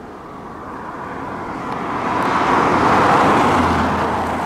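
A road vehicle passing close by: its tyre and engine noise swells to a peak about three seconds in, then begins to fade.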